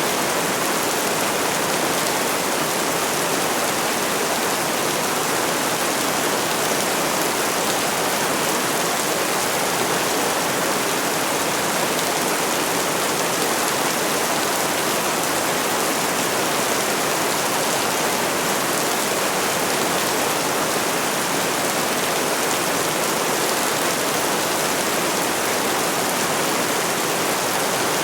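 Rain falling steadily, an even hiss with no thunder or separate drops standing out.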